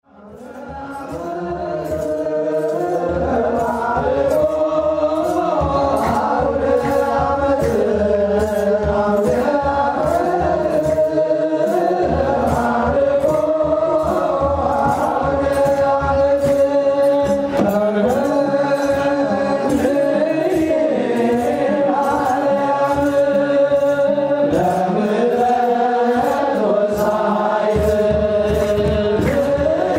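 Ethiopian Orthodox wereb chant: a choir of men sings a hymn in unison over a steady beat. It fades in over the first couple of seconds.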